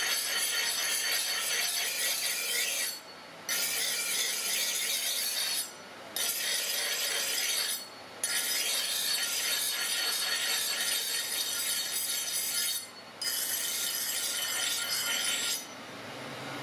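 Steel axe-head edge being ground on a large motor-driven abrasive grinding wheel: a loud, harsh rasp of steel on stone, broken by four short gaps. Near the end the blade comes off the wheel and the rasp stops, leaving the quieter running of the grinder.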